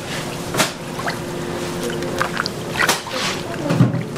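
Kitchen work noises: a few short sharp knocks and a low thud near the end, over a steady hum.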